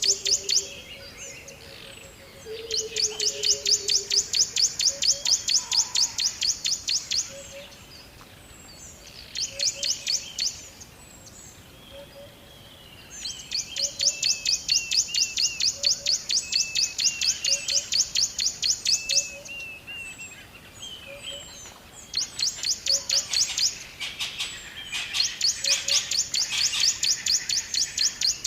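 Rainforest ambience of birds calling. Loud, rapid, high pulsing trills come in bursts of several seconds with short gaps between them, over short chirps and a soft low call that repeats about once a second.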